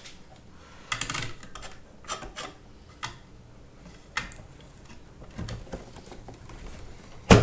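Scattered light clicks and knocks of a graphics card, a Gigabyte GeForce GTX 1080 G1, being handled and fitted into the motherboard's PCIe slot, with one sharper click near the end.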